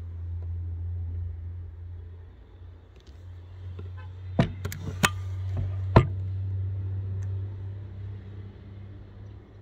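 Wooden-stocked bolt-action rifle being handled, with four sharp knocks and clicks in quick succession about four seconds in, over a low steady hum.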